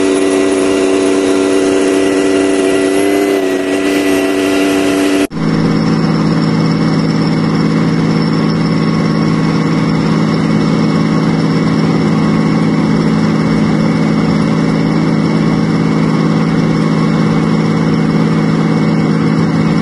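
Main battle tank's diesel engine running with a steady, even hum. About five seconds in the sound changes abruptly to a lower-pitched, steady run as the tank stands with its turret traversing.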